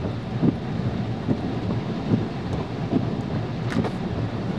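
Golf-ball-sized hail coming down in a wind-driven storm: a dense, steady roar with irregular thuds of individual hailstones striking.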